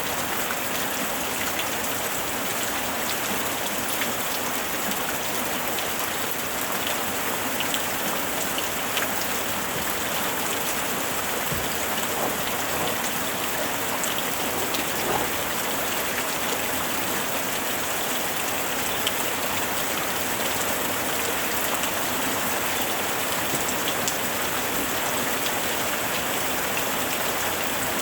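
Steady rain falling on a surface, with many small drop impacts in a continuous patter.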